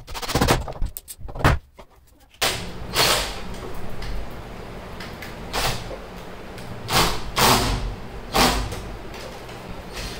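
A few sharp knocks and clunks of metal door-closer hardware against a wooden door. Then the Foster FK 38-21 21V cordless drill-driver runs in several short bursts, driving screws into the door-closer bracket.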